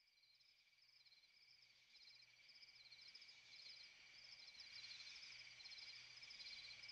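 Faint chirping of insects, growing steadily louder as it fades in: a steady high trill with rapid, repeating chirps above it.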